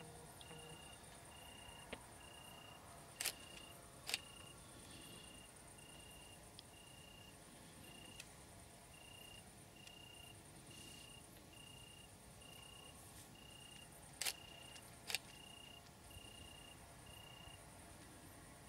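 Crickets chirping in a steady, even rhythm of short high notes, about four every three seconds, over a fainter continuous high insect buzz. Two pairs of sharp clicks, the loudest sounds, come about three seconds in and again about fourteen seconds in.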